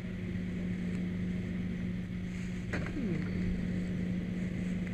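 Steady low engine hum running without change, as of a vehicle idling close by, with a sharp click and a short falling squeak about three seconds in.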